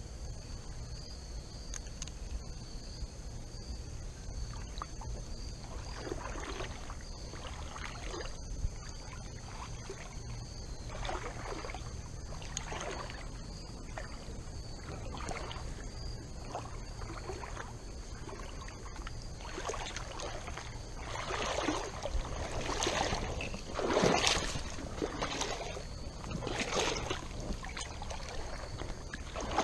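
Water sloshing and splashing in irregular strokes, roughly one a second, growing louder in the last third, like feet or legs moving through shallow creek water.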